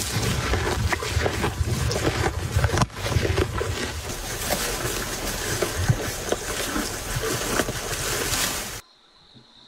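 Cow tearing and chewing grass close to the microphone: a dense crunching and rustling with a low rumble underneath. It cuts off abruptly near the end, leaving faint insects trilling.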